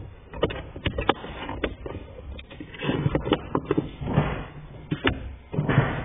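Irregular plastic clicks and knocks with bursts of rubbing as a Ford Fiesta's gear-shift knob and rubber shift gaiter are handled and pushed around the lever, about a dozen sharp clicks over a few seconds.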